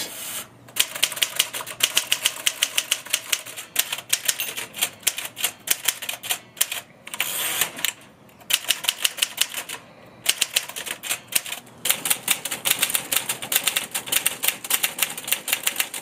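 Manual typewriters being typed on, a 1946 Underwood SS and an Olivetti Studio 44: runs of rapid key strikes clacking against the platen, broken by short pauses.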